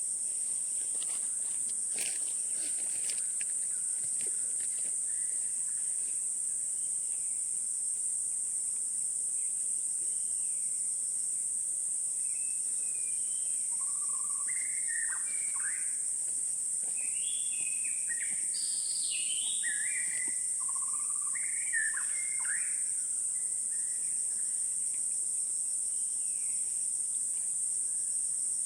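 Steady high-pitched insect chorus in forest, with a bird calling a run of short notes through the middle.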